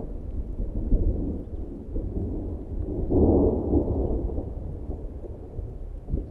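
Thunder rumbling, with a heavier roll about three seconds in that trails off slowly; low, deep rumble throughout.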